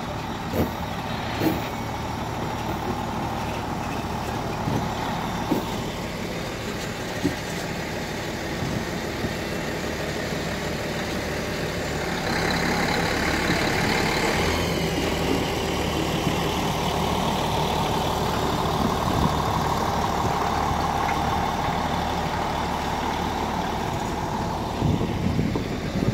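Diesel light-rail railcars with MAN engines running as the coupled train rolls slowly past, one unit towing the other. A steady engine drone with a few short clicks, growing louder about halfway through as the cars pass close by.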